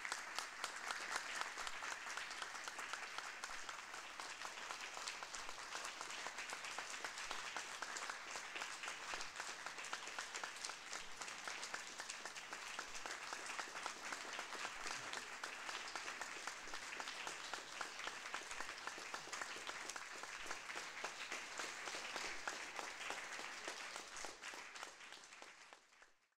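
Audience applauding, a dense steady patter of many hands clapping that fades out near the end.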